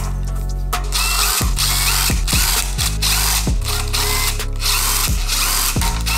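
DeWalt cordless drill spinning oil pan bolts out of a Toyota 1FZ-FE engine in short runs, its whir starting about a second in, with a hand ratchet working bolts just before.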